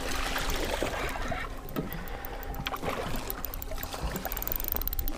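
Water splashing and sloshing at the surface as a small hooked mahi-mahi thrashes beside the boat, in many small irregular splashes over a low rumble.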